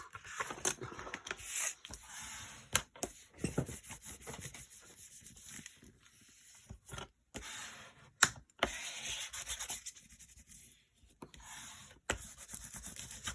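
Bone folder rubbing and scraping over freshly glued paper, pressing it down so it sticks, in short strokes with pauses between and a few sharp clicks.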